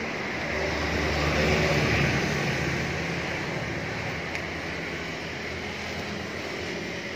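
Suzuki A100's small air-cooled two-stroke single-cylinder engine running steadily at idle, swelling briefly around two seconds in.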